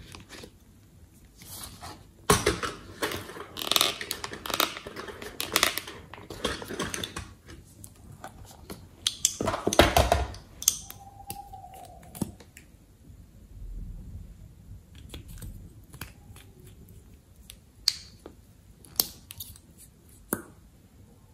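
Plastic lip gloss tubes being pulled out of a cardboard makeup box and handled: bursts of scraping and rustling in the first half, then scattered sharp clicks and taps.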